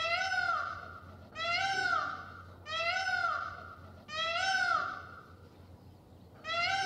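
Peacock calling: five calls in a row, each about a second long, arching up and then down in pitch. The first four come about every second and a half; the last follows a longer pause near the end.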